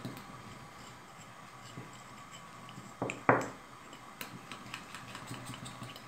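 A metal fork stirring a thick rice-flour and oil paste in a small glass bowl, with light ticks of metal on glass, and two louder knocks close together about three seconds in.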